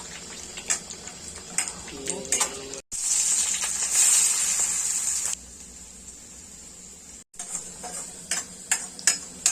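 Curry ingredients frying in hot oil in a pan, stirred with a metal spatula: scattered clicks and scrapes of the spatula on the pan, with a loud sizzle about three seconds in that drops away suddenly after a couple of seconds.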